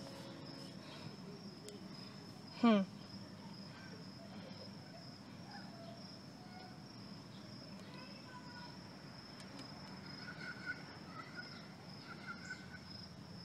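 Insects droning steadily at one high pitch. About two and a half seconds in, a person makes a short, falling vocal sound.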